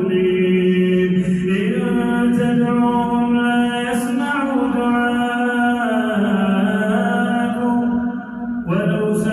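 A man's voice reciting the Quran in slow melodic chant, holding long drawn-out notes that step up and down in pitch. There is a short break near the end before a new phrase begins.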